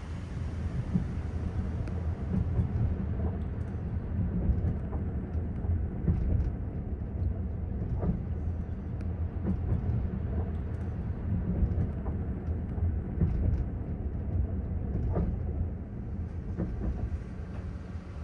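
Heard from inside a Caledonian Sleeper Mark 5 sleeping car: a steady low rumble of the wheels running on the rails, with irregular clicks and knocks.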